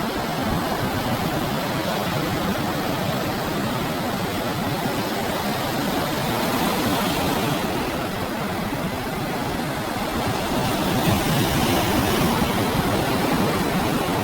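Ocean surf breaking and washing onto a beach, a steady rush of noise that swells a little near the end.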